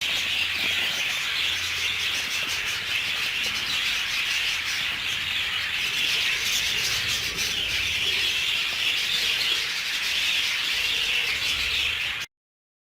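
A flock of budgerigars chattering together in a steady, dense warble that cuts off abruptly near the end.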